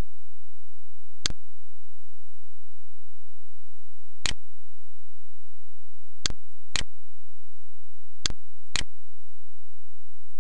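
Computer mouse clicks, six in all, single ones followed by two quick pairs, over a faint steady low hum.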